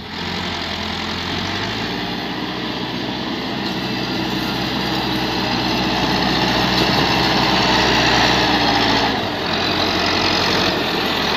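Massey Ferguson 385 tractor's four-cylinder diesel engine running under load as it pulls a heavily loaded trolley, growing steadily louder as it comes closer. Its note dips briefly about nine seconds in, then picks up again.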